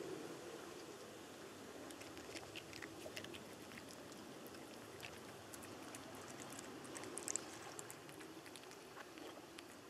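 Cats crunching dry food: many small, crisp, irregular clicks, with a denser cluster about seven seconds in, over a steady low background hum.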